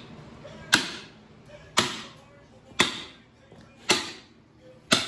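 Hammer striking a steel punch set against the back of a small-block Chevy 350's camshaft, driving the cam out of the block: five sharp metallic blows about a second apart, each ringing briefly.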